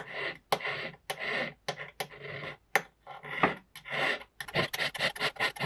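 Hand file scraping back and forth across a small cast metal pendant, filing off the casting burr: slow strokes at first, then quicker, shorter strokes at about five a second in the second half.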